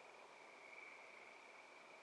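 Faint night chorus of high, overlapping trills that run on steadily, one trill taking over as another fades, over a soft hiss.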